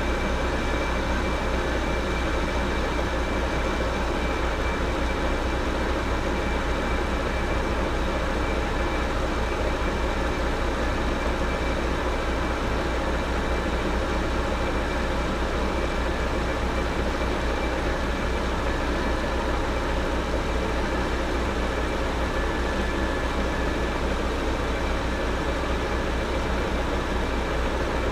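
South Bend 14-1/2 engine lathe running steadily under power feed, turning a shaft between centers: an even low hum with a thin, steady high whine that does not change.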